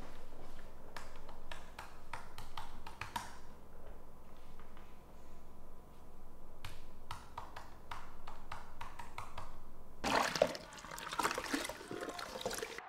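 Water running from a kitchen tap over hands at the sink, starting about ten seconds in. Before it come scattered light clicks and knocks.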